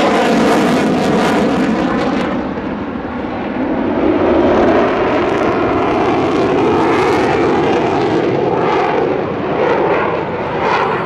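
Mitsubishi F-2 fighter's single F110 turbofan jet engine running loud as the jet flies its display, the roar dipping slightly a few seconds in and then building again.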